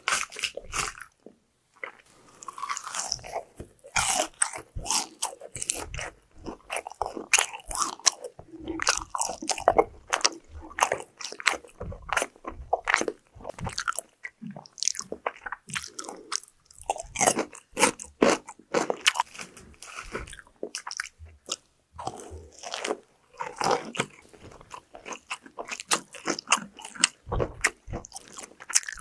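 Close-miked eating: repeated crunchy bites into fried food, with crackling chews between them. There is a short pause about a second in.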